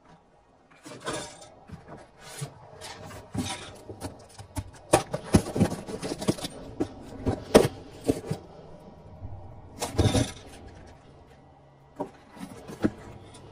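Cardboard boxes of spray paint cans being handled and shifted: irregular scraping, rubbing and knocks of cardboard and cans, busiest in the middle and again about ten seconds in.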